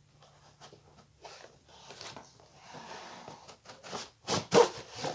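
Handling noise from unpacking a new tripod: rustling of packaging with scattered clicks, then a quick run of four sharper knocks and clatters near the end, the loudest among them.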